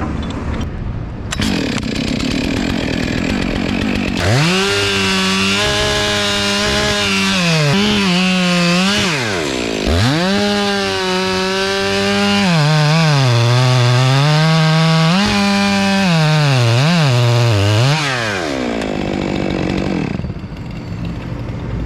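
Chainsaw revved up about four seconds in and cutting wood, its engine pitch sagging repeatedly as it bogs down in the cut and climbing back when the load eases. It drops off near the end.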